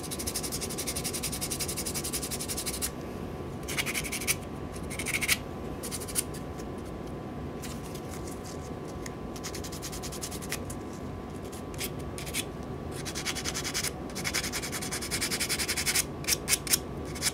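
Sandpaper rubbed quickly back and forth over a small white-metal model part, a dry scratching that smooths down a mould seam line. It comes in two stretches, at the start and again near the end, with a few light clicks in between.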